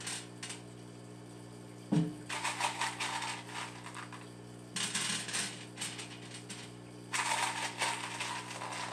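Small pieces of ceramic biological filter media clinking and rattling as they are dropped and spread by hand on the bare glass bottom of an empty aquarium, in three bursts of clicks. A single thump comes about two seconds in, and a steady low hum runs underneath.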